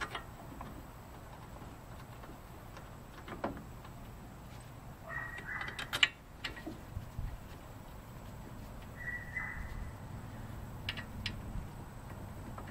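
Faint clicks and taps of a new front brake caliper and its mounting bolts being handled and fitted by hand, with one sharp metal click about six seconds in. A bird chirps briefly twice in the background.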